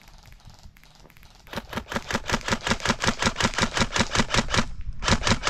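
Airsoft rifle firing on full auto, with fast, even shots at about nine or ten a second. A burst of about three seconds is followed by a short pause and then a brief second burst of about four shots.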